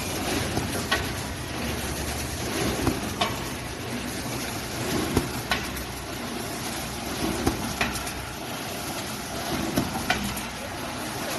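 Automatic PP woven bag cutting and sewing machine running, a steady mechanical noise with a pair of sharp clicks repeating about every two and a half seconds in time with the machine's cycle.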